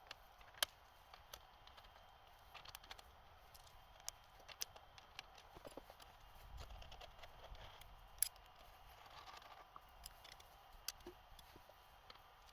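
Faint room tone with a few scattered sharp clicks and light taps, the clearest about half a second in and a little after eight seconds.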